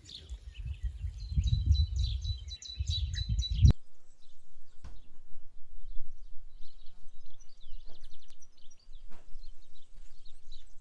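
Small songbirds chirping and singing in short, high, repeated phrases. For the first few seconds a low rumble runs under them, then cuts off suddenly; a few sharp clicks come later.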